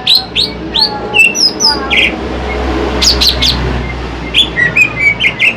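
Green leafbird (cucak ijo) singing: a run of sharp, short chirps and whistled notes in quick clusters, with two brief pauses, over a steady low hum.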